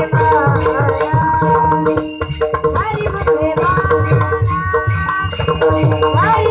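A boy singing a devotional melody with gliding, ornamented notes over held accompanying tones. Pakhawaj drum strokes and small hand cymbals keep a steady beat.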